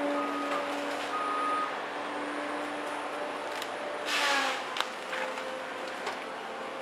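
Cat 521 track feller buncher working, with a steady machine hum throughout. About four seconds in there is a loud, brief noisy burst whose pitch falls as the HF201 disc-saw felling head cuts into a tree under load.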